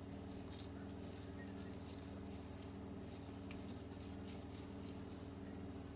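Steady low background hum, with a few faint soft pats of hands rolling moist stuffing into small balls.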